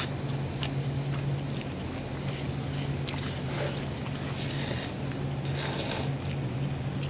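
Noodles being slurped in a few short bursts in the second half, with faint clicks of chopsticks against a bowl, over a steady low hum.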